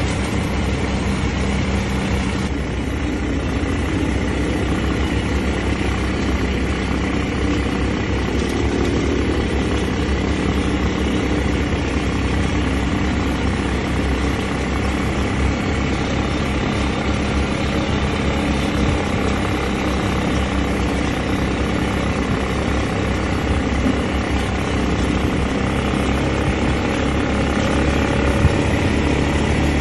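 Quad-bike (ATV) engines running steadily at riding speed: a continuous, even drone with no pauses.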